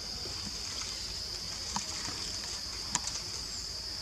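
Steady high-pitched outdoor background hiss, with a few faint clicks and one sharper click about three seconds in.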